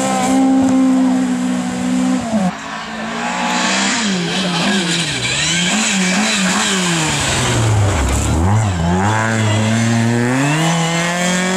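Volvo 240 rally car engines at high revs, two cars one after the other: first held at steady high revs, then, after about two and a half seconds, an engine rising and falling with throttle lifts and gear changes. The revs drop lowest about eight seconds in and climb again near the end, with tyre noise throughout.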